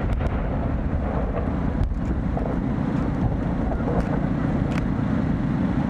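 Steady low rumble of wind buffeting the microphone, with a few faint pops from fireworks bursting.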